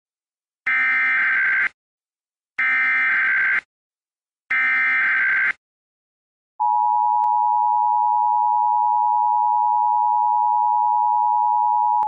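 Emergency Alert System header: three one-second bursts of warbling SAME digital data tones about a second apart, then the two-tone EAS attention signal, a steady dual tone held for about five seconds that cuts off abruptly. This is the standard opening of an EAS broadcast, here for an Amber Alert.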